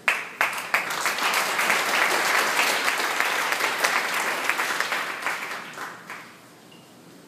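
Audience applauding. The clapping starts suddenly and dies away after about six seconds.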